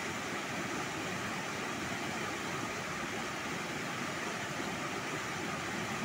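Mountain river rushing over boulders in a small cascade: a steady, even rush of white water.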